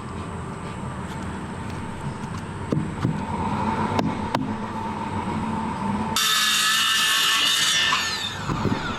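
Light knocks and clicks of handling, then about six seconds in a power tool starts abruptly, runs at a high whine for about a second and a half, and winds down with falling pitch. It is taking a couple of millimetres off a hardwood trim piece.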